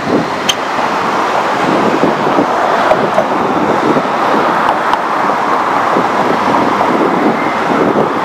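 Steady street traffic noise with wind on the microphone, and a couple of faint clicks.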